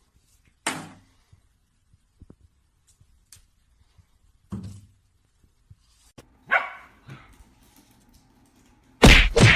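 A dog barking three times, several seconds apart, followed near the end by a much louder sudden thump.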